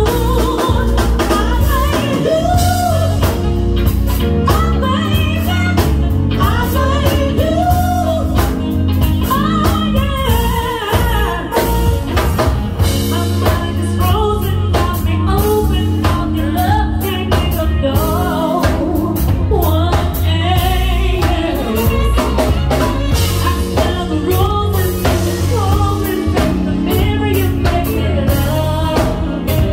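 Live band playing: a singer's voice over a drum kit with a steady beat, bass and electric guitar.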